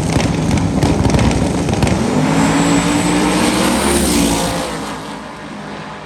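Drag race cars running down the strip at full throttle, the engine note climbing, then fading away about four and a half seconds in.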